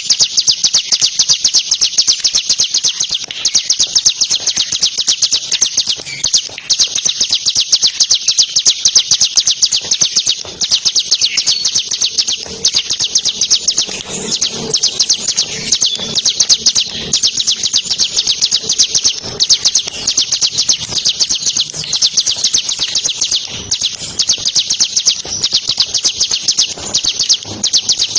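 Bar-winged prinia (ciblek) singing an unbroken, very rapid high trill of densely repeated notes, the 'ngebren' style of song.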